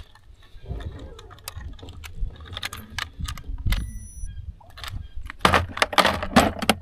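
Clicks and rattles of a handheld fish scale and fishing gear being handled on a bass boat deck, with a louder stretch of clattering near the end. A brief high tone sounds about four seconds in.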